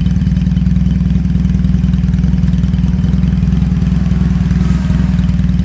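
BMW 1000 boxer flat-twin engine of a classic racing sidecar, idling steadily with an even, unchanging beat.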